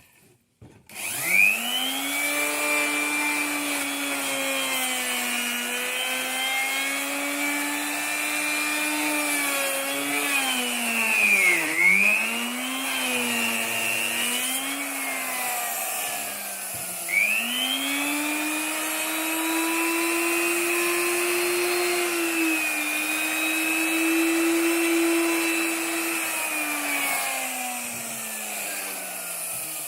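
Electric wood router spinning up after a brief silence and running with a high whine, its pitch sagging and recovering as the cut-down slotting bit cuts into wood, with two sharp dips near the middle.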